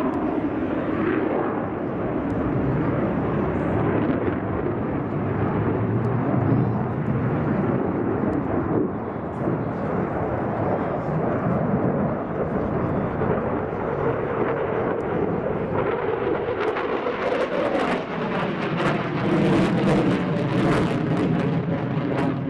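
F-15J fighter's twin jet engines running loud and steady, a dense rushing noise with no breaks.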